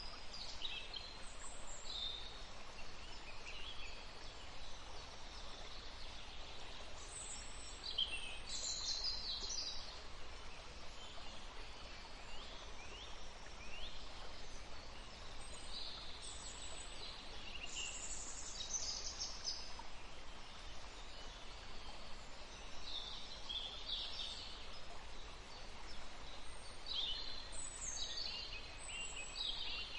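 Songbirds chirping and singing, with short high notes and quick trills coming in scattered clusters, over a steady faint hiss.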